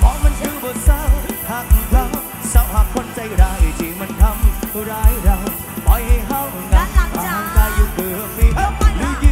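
A live band playing through a large outdoor concert PA system, with a singer over a heavy kick drum that beats steadily in pairs about once a second.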